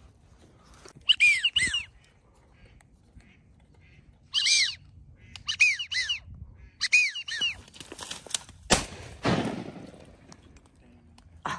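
Waterfowl calling: short, high, arching whistled notes in clusters of two or three, repeated several times. About nine seconds in comes a sudden rush of noise, and a brief burst near the end.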